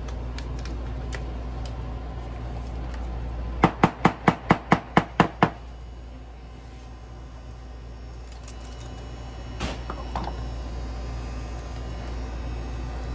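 A steady low hum with a quick run of about nine sharp taps, roughly five a second, about four seconds in, and a couple of softer knocks near the ten-second mark.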